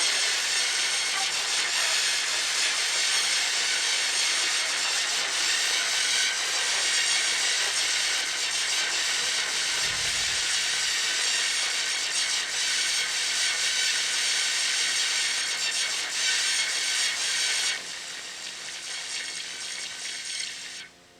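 Steady, loud hissing noise, like static, used as a sound effect; it drops to a quieter level near the end.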